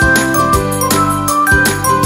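Background music: a melody over a steady beat of about four strokes a second.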